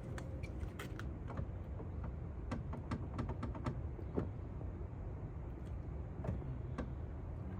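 Irregular light clicks and taps of hand tools and parts being worked at a car door while a door handle is bolted back in, over a low steady background rumble.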